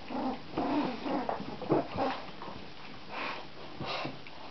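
Three-week-old border collie puppies giving a rapid string of short whines and yips as they play, thickest in the first two seconds with a few more calls later.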